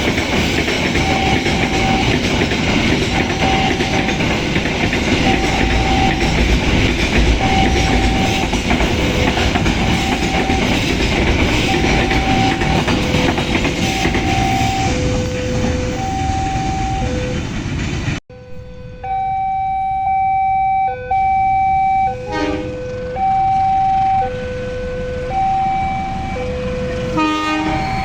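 A train passing over a railway level crossing with a steady rumble and wheel noise, while the crossing's electronic warning alarm repeats a high and a low note about once a second. About two-thirds of the way in, the train noise cuts off abruptly, leaving the two-tone crossing alarm sounding on its own.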